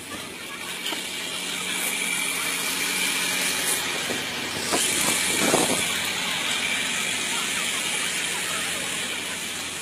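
A car on a snow-covered road, its engine hum and the hiss of its tyres in the snow growing louder towards the middle and slowly fading.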